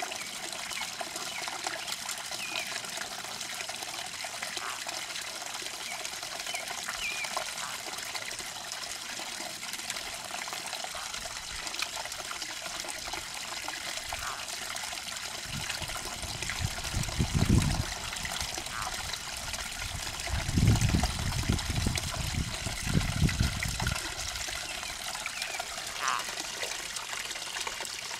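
Steady outdoor hiss like trickling water, with a few faint short chirps and two bouts of low rumble past the middle. The snake and frog themselves make no audible sound.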